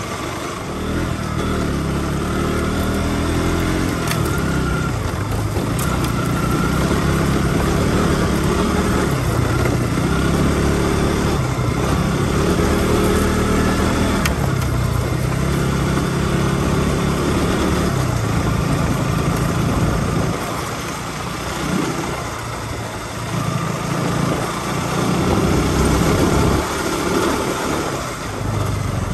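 KTM RC sport bike's single-cylinder engine running under way on a dirt track. The revs climb and fall back again and again as the throttle opens and closes, over a steady rushing noise.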